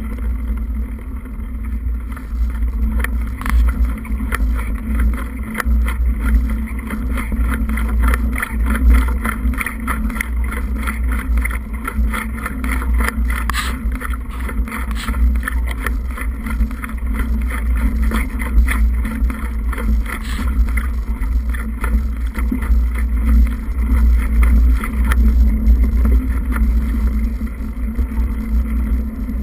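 Wind buffeting the microphone of a camera on the move along a rough dirt trail, with a steady low hum and frequent small knocks and rattles from the bumpy ground.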